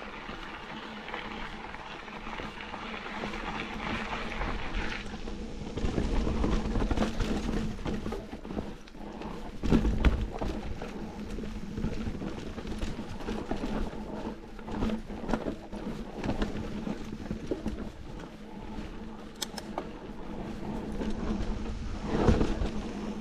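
Mountain bike being ridden over gravel and rocky forest trail: tyres crunching and rolling, wind rushing over the microphone, and the bike knocking and rattling over bumps, with the hardest jolts about six, ten and twenty-two seconds in.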